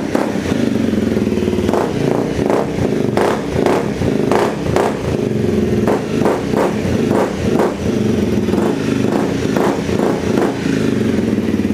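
Honda CRF250L single-cylinder engine running through a freshly fitted FMF Q4 silencer and Megabomb header, with the spark arrestor removed. It idles steadily, with a series of short throttle blips through the middle.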